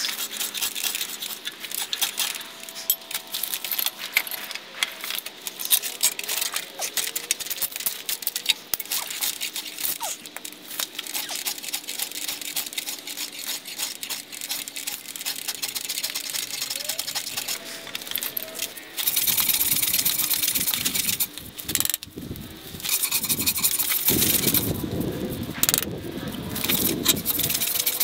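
Hand-tool workshop sounds: irregular scraping and light metallic clinks and rattles, then two louder stretches of steady rasping, one about two-thirds of the way in and one near the end.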